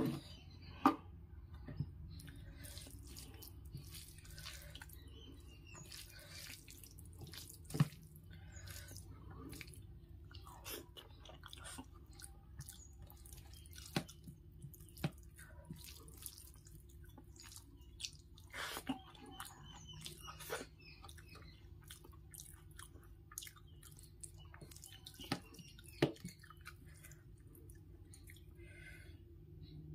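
Eating rice and dal by hand from a steel plate: soft wet squelching of the rice being mixed with the fingers, scattered sharp clicks of fingers and food on the metal plate, and chewing.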